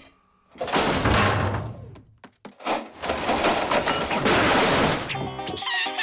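Cartoon crash sound effects of a refrigerator's contents being dumped out and splattering over a table: two long clattering crashes. Music takes over near the end.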